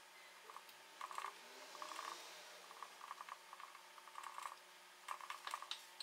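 Silicone pastry brush dabbing sugar syrup onto a sponge cake layer: faint, quick soft taps in short irregular clusters.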